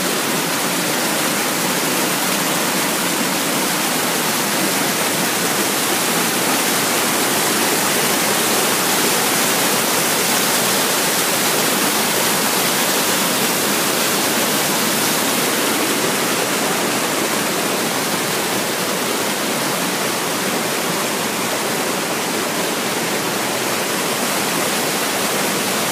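Waterfall rushing with a steady, loud roar of falling water that does not change.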